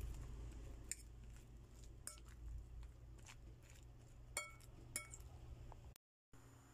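Metal fork clinking against a bowl while tossing sliced eggplant in its coating: a few sharp clinks, each ringing briefly, over a faint steady hum.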